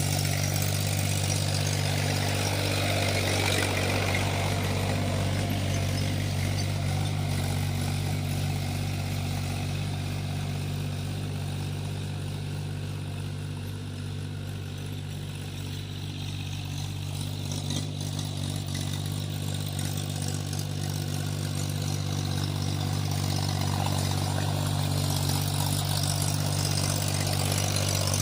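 Diesel tractor engine running steadily while ploughing a field. It grows somewhat quieter around the middle, then louder again.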